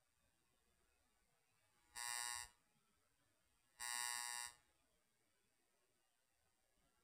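Two short electronic buzzes, about two seconds apart, the second a little longer, against near silence.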